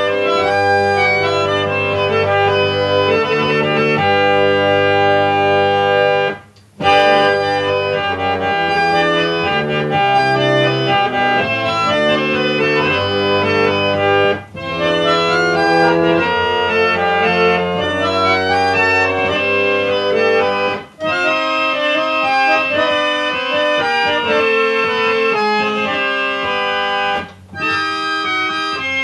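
1879 Clough and Warren pump reed organ playing a Baroque toccata: held chords and running lines in its reedy tone, with four brief breaks in the sound. Its reeds are only about 85% in tune.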